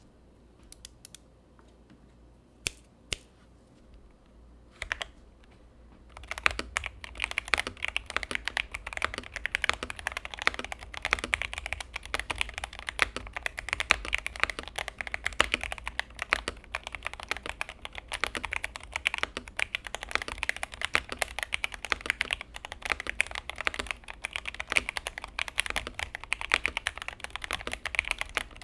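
Mechanical keyboard with lubed Akko Jelly Black linear switches, a Gamakay LK67 with an acrylic plate, being typed on. There are a few separate key presses at first, then from about six seconds in steady, fast typing.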